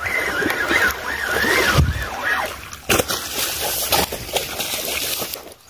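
Water splashing and sloshing as a hooked snakehead thrashes at the surface during the fight. A wavering high tone runs through the first half, and a few sharp clicks come later.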